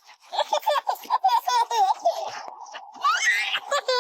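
A person laughing hard in short, high-pitched bursts, with a rising squeal about three seconds in.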